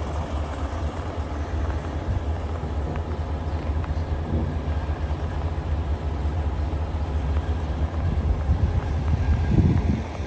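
A large farm machine's engine idling with a steady low rumble. A brief louder noise comes near the end.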